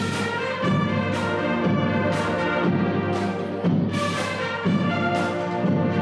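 Background music: sustained chords over a steady beat about once a second.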